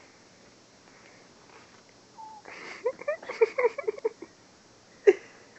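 A person laughing in a quick run of short, high-pitched bursts about halfway through, followed about a second later by one short, sharp sound, the loudest moment.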